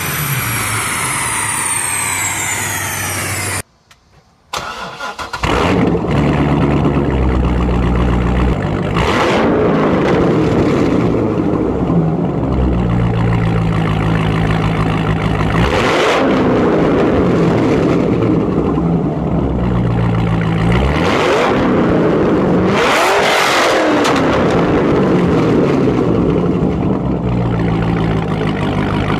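A straight-piped C6 Chevrolet Corvette V8 starts up about five seconds in, after a brief silence, then idles loudly through its quad centre exhausts and is blipped several times, the pitch rising and falling with each rev. Before the silence, another engine winds down from high revs, its pitch falling steadily.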